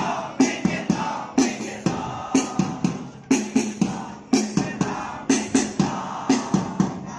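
A large group of students chanting a cheer in unison, led by a drum beating a repeating pattern of three quick strokes about once a second.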